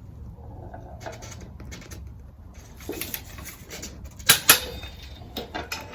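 Click-type torque wrench on a motorcycle rear-wheel bolt set to 60 Nm, with a few light knocks as it is pulled. About four seconds in there is a sharp double click as the wrench reaches torque.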